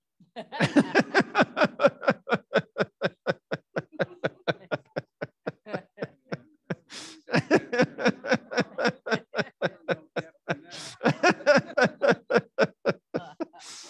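A small group laughing: a long run of quick ha-ha pulses, about five a second, with a short pause about halfway and gasping in-breaths as it picks up again.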